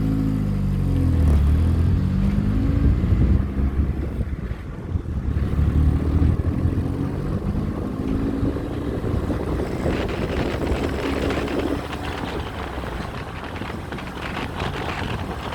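Motor vehicles going past close by, their engine hum sliding down in pitch as each one passes. From about ten seconds in, a rougher rushing noise takes over.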